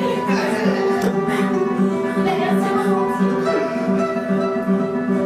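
Music led by a plucked acoustic guitar, over a steady pulsing low note.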